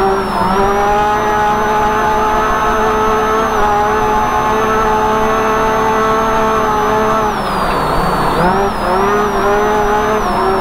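Race UTV engine heard from inside the cab while driving, holding a steady high pitch for about seven seconds over a low rumble. About seven and a half seconds in, the revs drop, then rise and fall several times.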